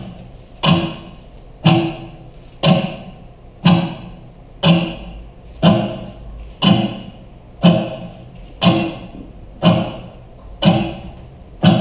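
A pitched, wood-block-like knock repeating evenly about once a second, each strike ringing briefly before the next.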